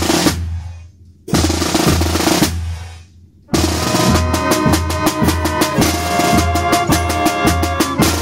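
Marching snare drum played with sticks: a loud roll dies away just after the start, a second roll swells and fades a second or so later, then from about three and a half seconds in comes a steady run of fast strokes. An even low beat runs underneath.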